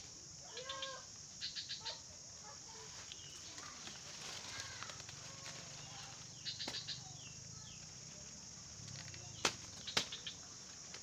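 Outdoor ambience of a steady high insect drone with scattered short bird chirps, and two sharp knocks half a second apart near the end.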